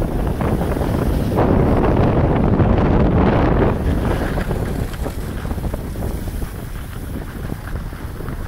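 Wind rushing over the microphone of a camera carried by a moving skier: a loud, steady rush that swells for a couple of seconds, then fades gradually from about four seconds in.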